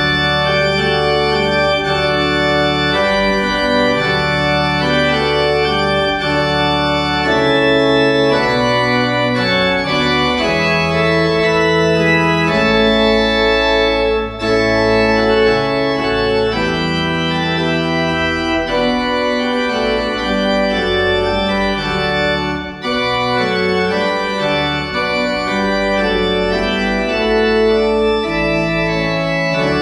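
Church pipe organ playing a closing postlude: sustained full chords over a deep pedal bass, the harmony moving every second or so, with two brief breaks between phrases, about a third and three quarters of the way through.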